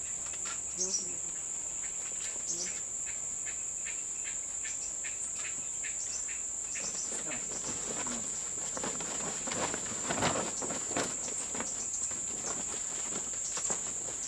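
Steady high-pitched drone of forest insects, with a run of knocks and rustles from wooden sticks and poles being handled that starts about a third of the way in and is busiest in the second half.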